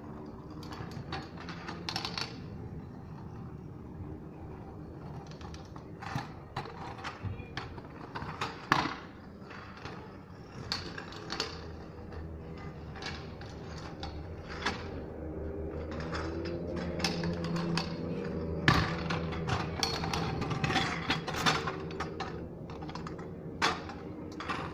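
Scattered clacks and knocks of a stunt scooter on a tarmac street: wheels rattling over the rough surface and the deck and bars knocking down during tricks, the loudest hits about nine seconds in and near nineteen seconds. A steady low hum under it grows louder about two-thirds of the way through.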